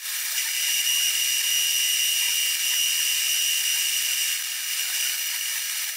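Milling machine cutter turning and cutting metal: a steady machining hiss with a high, even whine, as it shapes the cylindrical top of a camshaft bearing cap.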